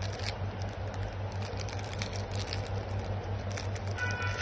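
Clear plastic zip bag with a watch inside crinkling and crackling as it is handled, over a steady low hum.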